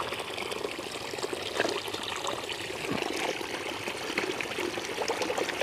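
Water pouring in a steady stream into a plastic tub of soapy water.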